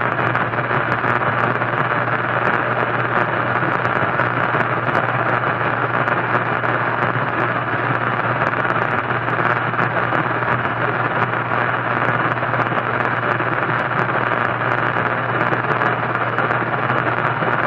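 Static from an untuned analog radio: a steady hiss with a low hum underneath and faint crackling.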